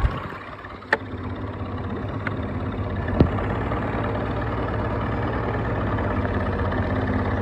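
Small fishing boat's engine idling steadily at the dock, with a couple of short knocks about one and three seconds in.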